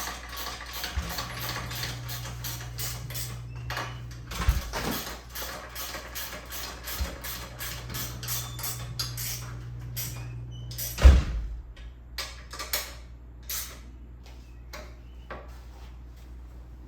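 Scattered clicks, knocks and metal clunks as the parts of a DeWalt miter saw stand are handled, slid and adjusted, with one heavy thump about eleven seconds in. A steady low hum runs underneath and stops at the thump.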